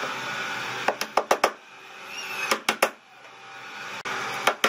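Hammer tapping to fix an aluminium sliding-glass track to a cabinet's base, in quick groups of sharp taps: four or five about a second in, three near the middle, and another run starting near the end. A steady hiss fills the first second.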